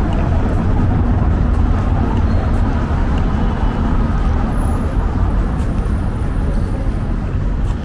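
Steady city road traffic, a continuous low rumble of passing cars.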